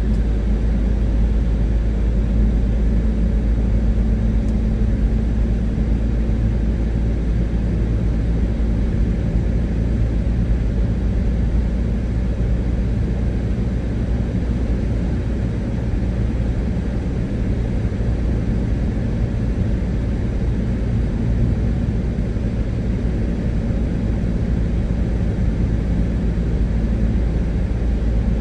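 Steady low rumble of a car driving at motorway speed on a wet road, heard from inside the cabin: road and engine noise.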